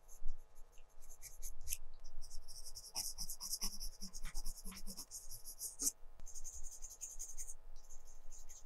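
Colored pencil scratching on textured paper: a few short strokes, then fast, steady back-and-forth shading for several seconds, broken by a brief pause.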